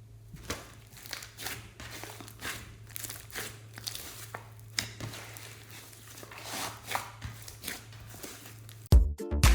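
Hands kneading and stretching slime, giving irregular sticky crackles and pops as air pockets in the slime burst, over a faint steady low hum. Dance music cuts in abruptly near the end.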